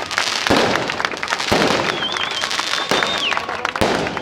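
Fireworks going off: a rapid crackle of many small bangs, with heavier booms about half a second, a second and a half and nearly four seconds in. A high whistle, wavering at first and then steady, sounds through the middle.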